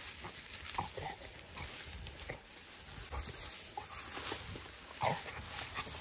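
A hunting dog making short, separate sounds several times, the loudest about five seconds in.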